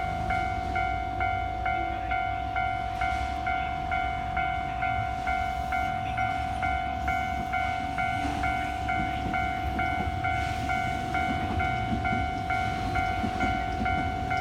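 Japanese electronic level-crossing alarm ringing in a fast, regular repeating pattern, over the low rumble of trains running past on the line.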